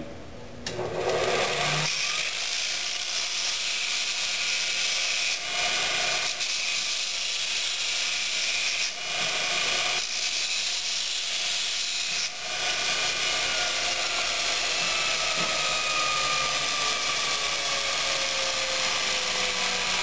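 Bench-grinder belt attachment running an abrasive belt, with a steel railroad spike held against it at the contact wheel. The motor comes up to speed within the first two seconds, then there is a steady, dense grinding noise of metal on the belt.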